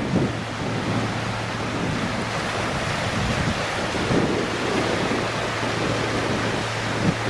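Wind buffeting the microphone in uneven low gusts, over a steady low hum.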